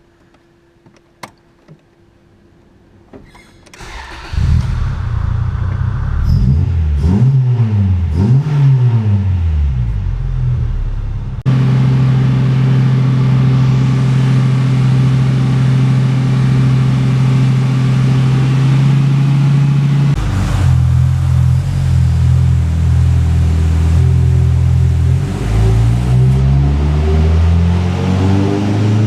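Honda Integra Type R four-cylinder engine on a dyno. A few faint clicks come first. The engine starts about four seconds in and is revved up and down. It then jumps to steady high revs, drops back, and climbs again near the end as the next pull begins.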